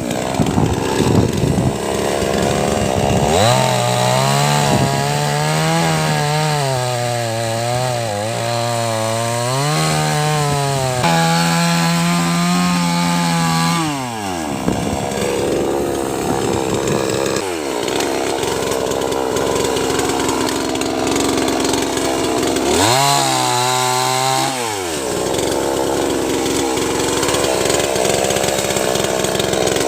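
Two-stroke chainsaw revving up to high speed about three seconds in and held there for some ten seconds with small dips in pitch, as when cutting wood, then dropping back to idle. It revs up again briefly for about two seconds later on before returning to idle.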